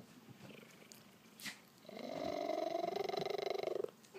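Male Maine Coon cat purring loudly. After a pause of almost two seconds, one long purr on a single breath starts about two seconds in, rising in pitch at its start, and stops just before the end.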